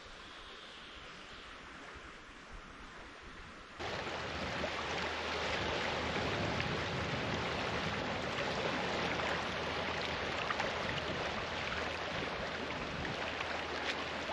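Faint, quiet outdoor hiss that is cut off about four seconds in by a louder, steady wash of small sea waves lapping and trickling among shoreline rocks, with some wind.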